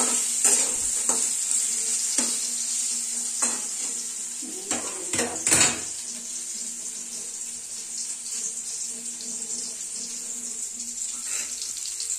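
Pieces of raw mango sizzling in oil in a steel kadhai, with a steady hiss. A metal spoon clinks and scrapes against the pan several times in the first half, loudest around the middle.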